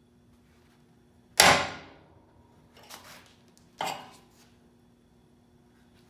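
Hammer blows on a hand-held steel chisel set against a rusty steel shock mount bracket: a sharp metallic strike with a short ringing decay, a lighter knock, then a second strike.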